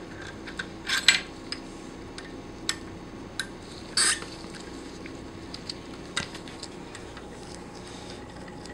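Metal parts of a Pfeiffer vacuum pump clinking and knocking as they are handled and fitted during reassembly. There are a handful of separate clinks, the loudest about a second in and about four seconds in.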